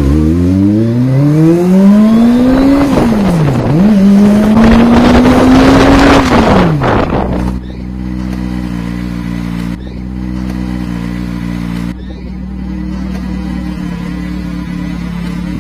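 Kawasaki Ninja ZX-25R's small inline-four engine revving hard as the bike accelerates. The pitch climbs, dips briefly about three seconds in, climbs again, then drops away at about six seconds and settles into a steady low running note.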